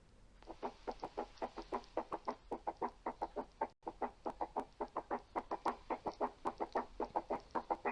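Recorded heart sounds, as heard through a stethoscope: a quick, even run of short beats, several a second, with a brief break about four seconds in.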